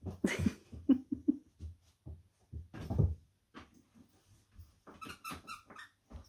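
Springer spaniel puppy playing in a fabric toy basket and tugging at plush toys: irregular scuffles, rustles and soft knocks, with a few short puppy grunts about a second in.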